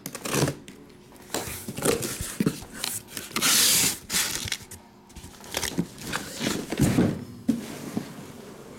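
Cardboard handling: a shipping case being slid up off shrink-wrapped trading-card boxes, with scattered knocks and rustles of cardboard and plastic wrap and one louder scrape between about three and four seconds in.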